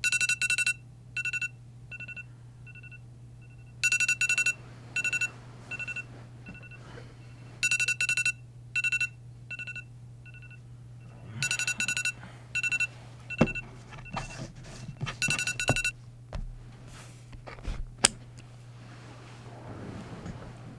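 Alarm beeping in repeating cycles about every four seconds, each a quick run of high double-toned beeps trailing off into slower single beeps; it stops about sixteen seconds in. Bedding rustles and knocks follow as the sleeper stirs, with one sharp click near the end.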